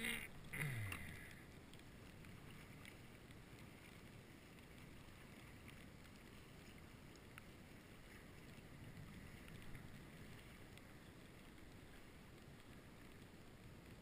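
Near silence: a faint, steady hiss of wind and water around a kayak, with a brief louder noise in the first second.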